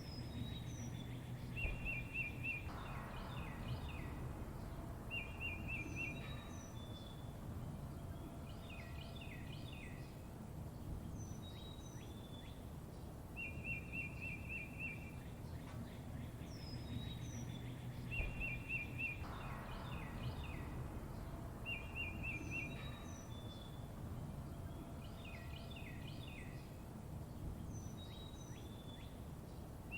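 Songbirds chirping, with a short rapid trill recurring every few seconds among quick high chirps, over a steady low background rumble. The sequence repeats as a loop about every 15 seconds.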